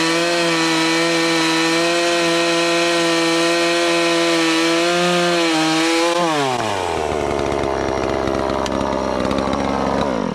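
Bilt Hard TNA 0006 gas chainsaw at full throttle, cutting through a log at a steady high pitch. About six seconds in the throttle is released and the engine winds down to a lower, steady idle. The sound cuts off suddenly at the end.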